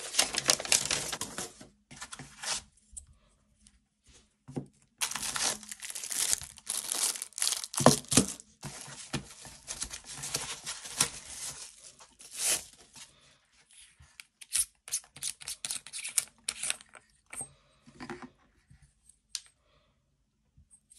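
A paper packing sheet crinkling and rustling as it is handled, in bursts of a few seconds each. Near the end, scattered light clicks and taps as items are handled in the box.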